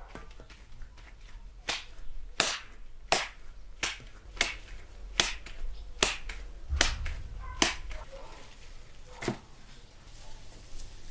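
Lump of minced lamb for lula kebab slapped from one gloved hand to the other, giving about ten sharp wet smacks, roughly three every two seconds. The slapping packs the mince and drives out air so it holds on the skewer.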